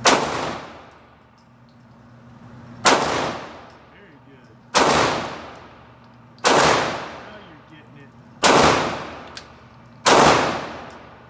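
Six pistol shots fired one at a time, about one every 1.5 to 2 seconds, each ringing off the concrete walls of an indoor range.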